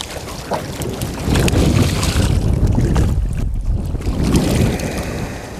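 Hooked rainbow trout thrashing and splashing at the water's surface beside a boat, then being scooped up in a landing net, with wind buffeting the microphone in heavy low rumbles.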